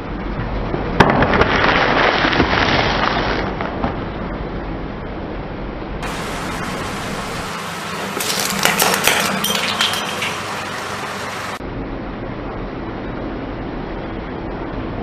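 Car tyre crushing a cardboard snack-chip tube: a sharp crack about a second in, then about two seconds of crunching and crackling. Another burst of dense crackling comes about eight to ten seconds in, over a steady background hiss.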